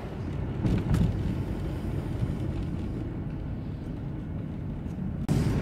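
Steady low rumble of road and engine noise heard inside a moving van's cabin, changing abruptly about five seconds in.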